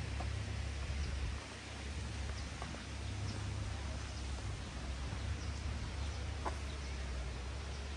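Outdoor ambience: a steady low rumble with faint, scattered short bird calls.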